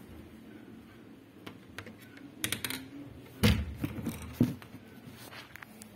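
Handling noise from a phone being picked up and moved: scattered clicks and rubs, with two louder thumps about three and a half and four and a half seconds in.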